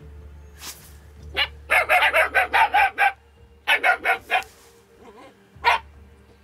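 Young German Shepherd puppies barking: a quick run of about ten high yappy barks, a short burst of four more, then a single bark near the end.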